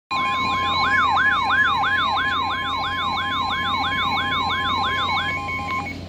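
Weather alert radio sounding a severe thunderstorm warning alert: a warbling siren, about two to three rising-and-falling sweeps a second, over a steady high alarm tone, the NOAA Weather Radio warning tone. The siren stops shortly before the end, and the steady tone just after it.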